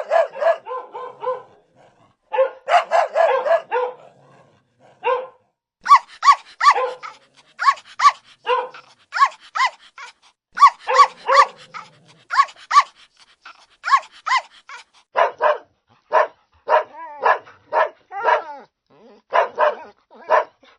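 Dog barking repeatedly in quick runs of short barks, with brief pauses between the runs.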